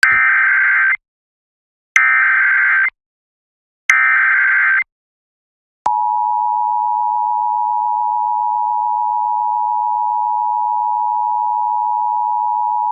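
Emergency Alert System activation over FM radio: three roughly one-second bursts of SAME digital header tones about two seconds apart, then the steady two-tone EAS attention signal starting about six seconds in.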